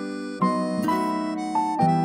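Instrumental background music: a melody of held notes, stepping to a new note about every half second.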